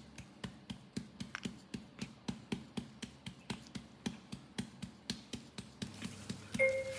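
A hand patting a newborn's back to bring up a burp: even, rhythmic pats at about four a second. A brief steady beep sounds near the end.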